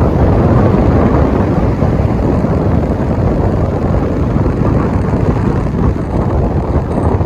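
Wind rushing over the microphone of a moving car, with a steady low rumble from the drive.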